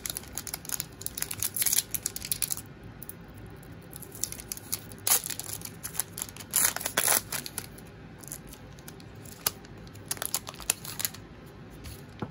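Foil wrapper of a Donruss baseball card pack being torn open and crumpled by hand, in three bursts of crinkling and tearing a few seconds apart.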